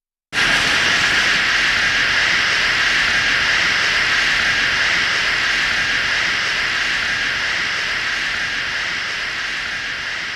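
A steady hiss that starts abruptly after a brief silence and slowly fades away.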